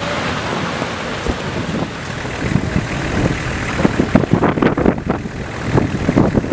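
Steady low roar of the Fimmvörðuháls fissure eruption. From about two and a half seconds in it is broken by irregular bursts and cracks, with wind buffeting the microphone.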